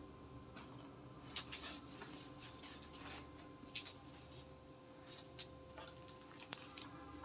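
Faint, scattered rustling of wash-and-wear suit fabric as it is handled and spread out on a table, over a faint steady hum.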